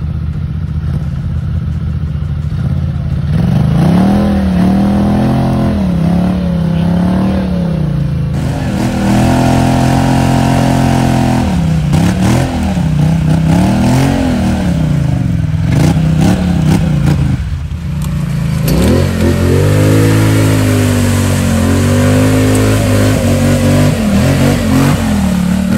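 ATV engine idling, then revved again and again with the pitch rising and falling, as the quad is worked out of a deep mud hole with its wheels spinning. There is a brief drop in the revving about two-thirds of the way through before it picks up again.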